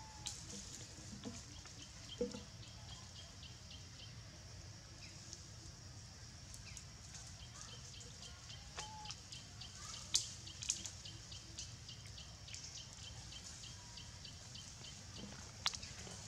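Quiet forest ambience over a steady low hum, with two runs of rapid high ticks at about four or five a second. Scattered soft clicks and rustles come from long-tailed macaques handling food among the leaves, with a sharper click about two seconds in and another near the middle.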